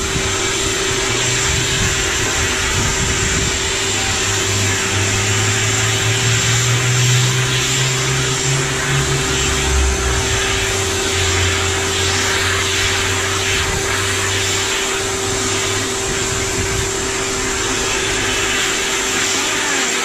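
Canister vacuum cleaner running steadily, its hose nozzle being drawn over a dog's coat: a constant rush of air with a steady motor hum, and a low rumble that comes and goes as the nozzle moves.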